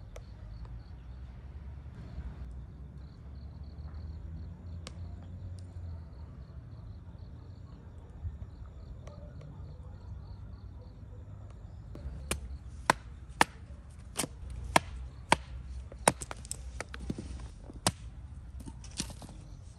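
A run of sharp knocks, about one or two a second, starting about twelve seconds in over a low steady rumble, with a faint steady high tone before the knocks begin.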